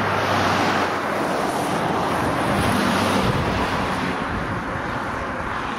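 Wind blowing over the microphone, a rushing noise that swells and eases.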